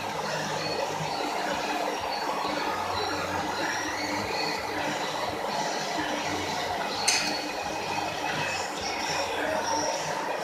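Steady gym background noise, with a short metallic clink about seven seconds in.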